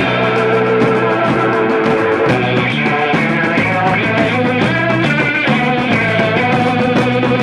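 Rock-style song playing: an instrumental stretch of band music without vocals.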